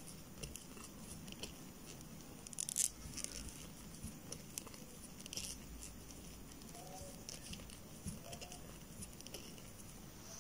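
Faint rustling of yarn and soft ticks of a crochet hook working double crochet stitches, with scattered light clicks, the loudest one just under three seconds in.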